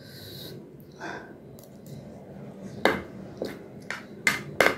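Metal fork clinking against a ceramic plate while picking up noodles: several short, sharp clinks in the second half.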